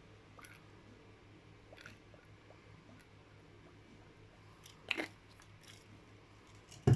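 Quiet handling noises: a few faint clicks, a brief scrape about five seconds in and a sharp knock near the end, over a low steady hum.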